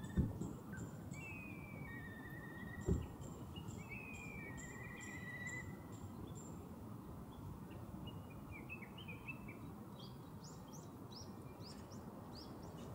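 Wild birds calling: several whistles sliding down in pitch, high thin peeps, and a run of quick chirps near the end, over a steady low rush of outdoor ambience. Two dull thumps, one at the very start and one about three seconds in.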